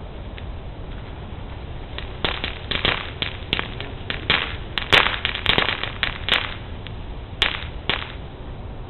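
Fireworks going off: a quick, irregular run of sharp cracks and pops, like a string of firecrackers, starting about two seconds in and dying away near the end.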